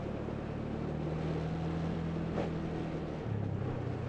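Small scooter engine running under way, its pitch rising about a second in and dropping back a little after three seconds as the throttle changes.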